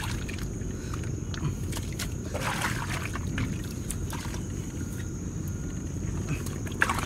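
Bare hands digging and scooping wet mud and muddy water, with squelches and small splashes now and then, over a steady low rumble.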